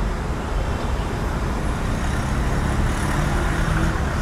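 Steady road traffic noise: the even rumble of vehicles running on a busy street.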